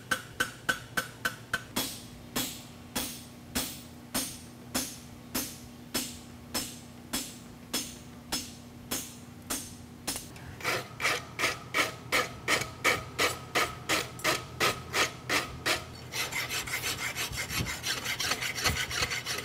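Hand hammer striking a hot steel horseshoe on an anvil in a steady rhythm of about three blows a second; the blows start to ring about halfway through. In the last few seconds it gives way to a rasp scraping the shoe in a vise.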